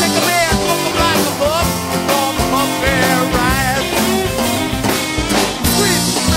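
Rock-and-roll band music with no vocals: drums and a lead instrument playing notes that bend up and down.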